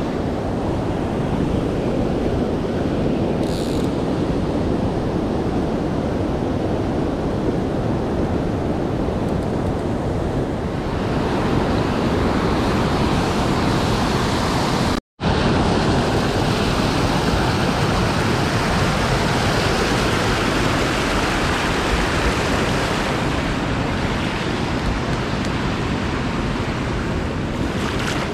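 Turbulent river water rushing steadily over rapids, a loud, even rush. It cuts out for an instant about halfway through.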